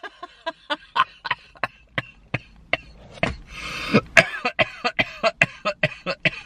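A person laughing helplessly: a rapid run of short breathy gasps, about three a second, with a few higher squealing bursts.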